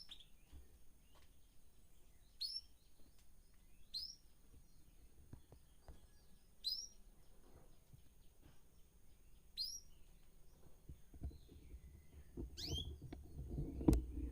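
Caged birds chirping: single short, sharp chirps that drop quickly in pitch, one every two to three seconds, with some low knocking near the end.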